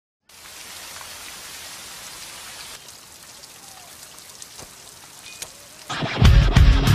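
Steady rain falling, with a few single drops standing out; it thins slightly about three seconds in. Near the end, loud rock music with heavy drums and bass comes in.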